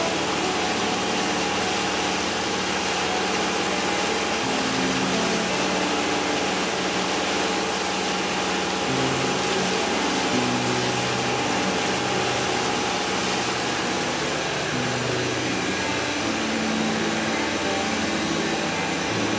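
Motorboat running at speed: a steady engine drone with rushing wake and wind noise, with music playing underneath in held notes that change every second or two.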